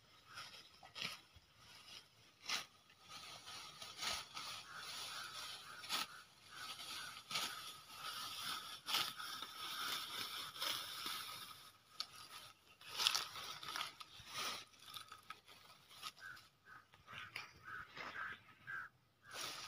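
Irregular crunching and rustling of grass as it is cut by hand and stepped through, with scattered clicks. A faint steady high tone runs underneath and breaks into short repeated pulses near the end.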